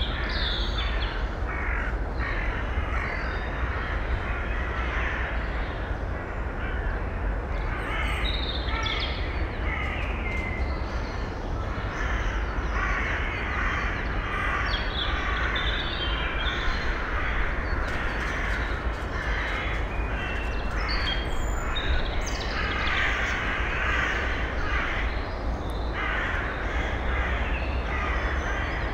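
Harsh, raspy bird calls repeated over and over throughout, over a steady low background rumble.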